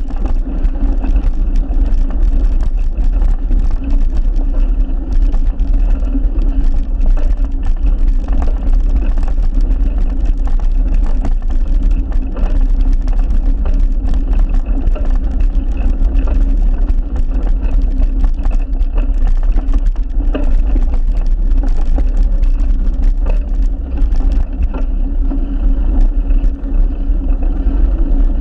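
Steady riding noise picked up by a handlebar-mounted camera: a loud low rumble and hum with frequent small knocks and rattles as it goes over the path.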